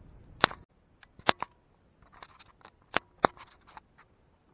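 Scattered sharp knocks and clicks of a wooden workpiece being handled and set against the metal table of a bandsaw that is not running, four of them loud.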